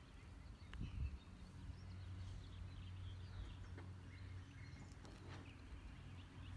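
Faint outdoor ambience: birds chirping weakly over a low steady rumble.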